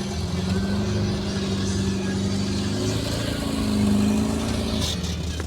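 Off-road 4x4's engine running under load, the revs rising to a peak about four seconds in and then easing off.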